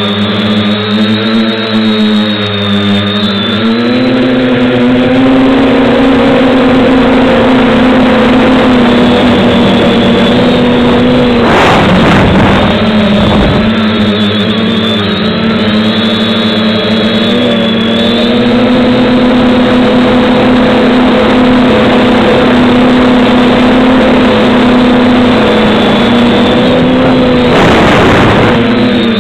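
FPV quadcopter's motors and propellers buzzing through the onboard camera's microphone, rising in pitch about four seconds in as it throttles up and lifts off, then holding a steady high drone. Two brief rushes of noise cut across the buzz, about twelve seconds in and again near the end.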